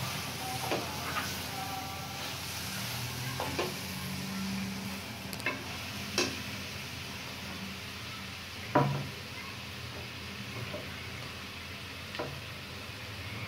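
Chickpeas and chopped tomatoes sizzling gently in a metal kadai while a slotted spoon stirs them, the spoon knocking and scraping against the pan about seven times, loudest about nine seconds in.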